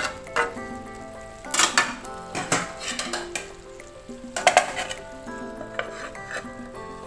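Metal spatula scraping and clanking against a wok as bitter gourd stir-fries with a steady sizzle, in several bursts, the loudest about a second and a half in and again around four and a half seconds. A melody of background music plays underneath.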